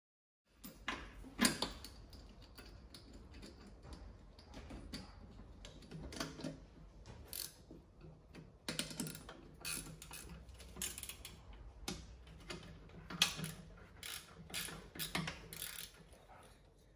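Irregular metallic clicks and clinks, some in quick clusters, from the bolts and nuts that hold a mower-deck blade-spindle housing as they are fitted and snugged up by hand on the steel deck.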